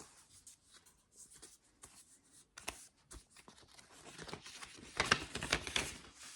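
Rustling and light clicks of a 7-inch vinyl single being handled and slid out of its inner sleeve, growing denser and louder about four seconds in.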